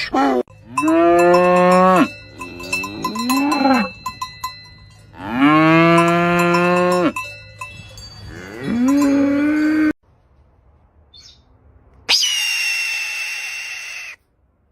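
Cows mooing, three long calls, with cowbells ringing and clinking under them. Near the end a different, higher sound of about two seconds follows a short pause.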